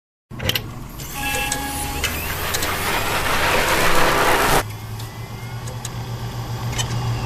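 Electronic sound effects of an animated intro: sharp clicks and short beeps, then a rushing swell of noise that builds and cuts off abruptly about four and a half seconds in, followed by a low pulsing hum with a few faint clicks.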